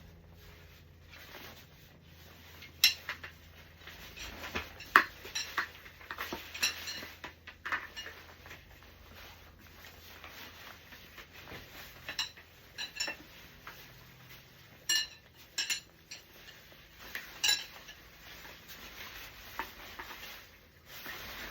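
Clips and frame parts of a Graco Pack 'n Play playard clicking and clinking as it is unsnapped and taken apart: about a dozen sharp clicks at uneven intervals, with quieter handling and rubbing between them.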